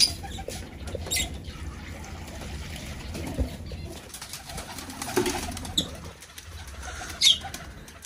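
Pigeons flapping their wings in short bouts, with a few brief high bird calls about a second in and near the end.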